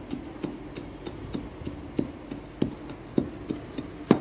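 Dry clods of earth being crumbled by hand on a concrete floor: small irregular crunches and taps, a few a second, the loudest near the end, over a low steady hum.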